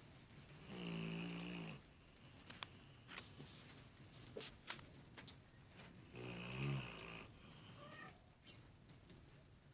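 Labrador retriever snoring in its sleep: two snores, each about a second long, some five seconds apart.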